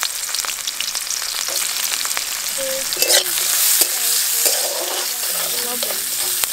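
Chopped onions frying in hot oil in a metal kadai: a loud, steady sizzle. A metal spatula scrapes and clicks against the pan as the onions are stirred.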